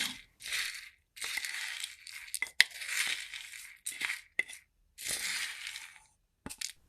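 Dried herbal medicine being scooped and handled: crisp rustling and crackling in separate strokes of half a second to a second, with a few sharp clicks around the middle.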